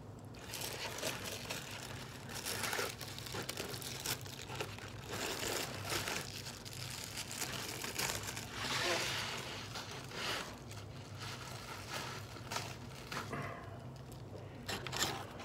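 Plastic wrapping of a frozen dinner crinkling as it is handled and opened, in irregular rustles and crackles with a few sharp clicks.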